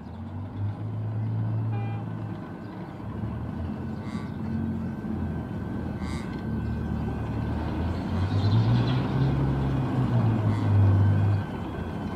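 X'Trapolis electric suburban train approaching slowly, its motors and wheels on the rails giving a low steady hum over a wide running noise that grows louder as it nears.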